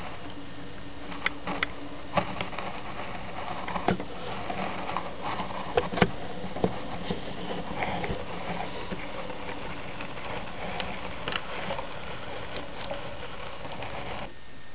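HO scale model diesel switcher (Southern SW9) running along the track: a steady whirring motor hum with irregular sharp clicks from the wheels on the rails.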